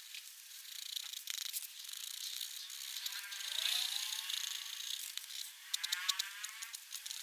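Black pigment pen scratching across paper in quick strokes, with small ticks, and twice a squeaky sliding stroke that falls in pitch.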